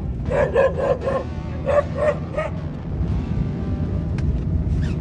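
A small dog barking inside a moving car, about seven quick high barks over the first two and a half seconds, over the steady low hum of the car driving.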